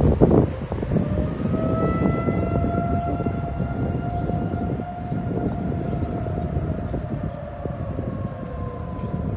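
Outdoor tornado warning siren sounding one long tone with overtones, rising slowly at first, then holding and sagging a little near the end. Wind buffets the microphone throughout, with a strong gust at the start.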